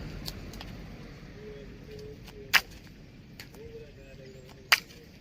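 Moringa stems snapping as leaves and pods are broken off by hand: two sharp snaps about two seconds apart, with a few fainter clicks around them.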